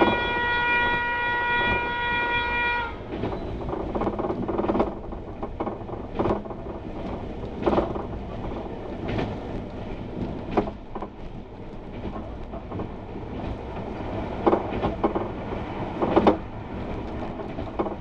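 Horn of a Y2 diesel passenger railcar, heard from inside the train: one steady blast that cuts off about three seconds in, sounded as a warning for unguarded level crossings. After it the train keeps running, its wheels clacking over the rails every second or two.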